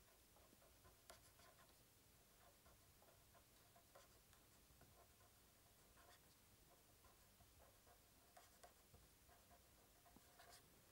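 Faint scratching of a pen writing words on paper, in short irregular strokes, with a light tick about a second in.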